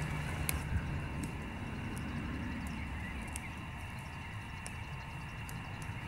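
Outdoor background noise: a steady low rumble, with a few faint, sharp ticks scattered through it.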